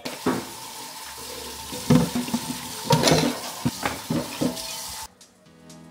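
Kitchen faucet running into a stainless steel sink as dishes are rinsed under it, with a bowl and a frying pan knocking and clattering several times. The running water stops suddenly about five seconds in.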